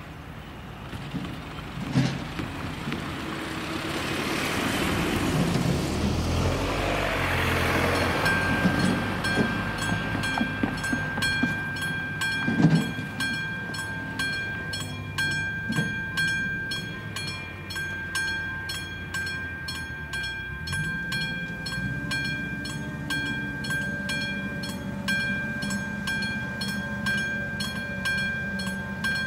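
A vehicle passes over the crossing in the first few seconds. About eight seconds in, the level-crossing warning signal's electronic bell starts and rings on with fast, even dings, warning that a train is approaching.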